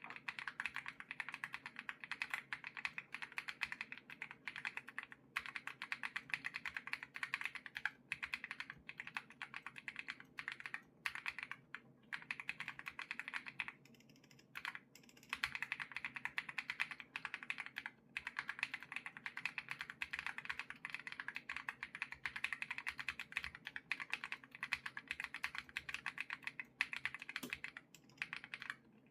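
Continuous fast typing on a Monstargear Ninja 87 Pro aluminium-case mechanical keyboard with Holy Panda tactile switches: a dense run of keystrokes, with a couple of brief pauses around the middle.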